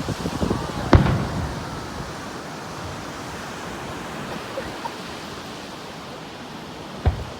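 Two aerial firework shell bursts: a loud boom about a second in and a smaller one near the end, over a steady background hiss.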